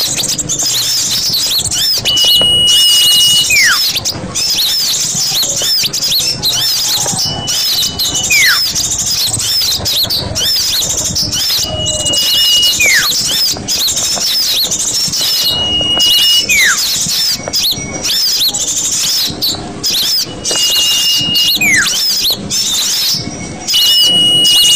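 Small-bird lure recording: dense, high twittering chirps throughout. About every four to five seconds, a held steady whistle is followed by a falling whistle, the same pattern each time, as in a looped calling track.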